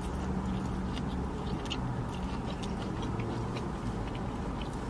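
Close-up chewing: soft wet mouth clicks and smacks as two people eat mushroom rice and fried plantains, over a steady low hum.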